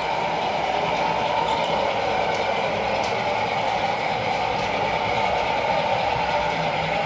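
Sound-fitted model Hymek diesel locomotive running on the layout, its decoder playing a steady diesel engine sound through the loco's small speaker.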